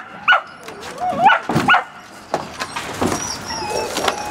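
Dutch Shepherd puppies yipping in short, high-pitched yelps, several in quick succession in the first two seconds, then fainter yips and whines.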